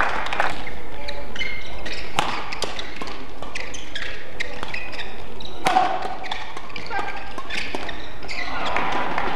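Badminton rally: rackets striking the shuttlecock over and over, with court shoes squeaking on the court mat between the hits.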